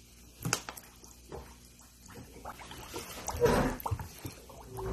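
Water splashing in a plastic basin as a plastic-bottle toy boat is set down and pushed in by hand, the loudest splash about three and a half seconds in, after a few light knocks of the bottle being handled.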